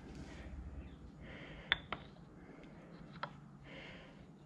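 Quiet hand handling of a magnetic sine bar plate on a lathe compound slide: two light, sharp clicks close together a little under two seconds in and a smaller one later, as the plate and its magnets touch the steel.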